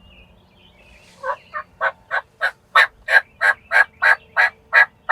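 Turkey yelping: a run of about a dozen raspy yelps, roughly three a second, starting about a second in and growing louder.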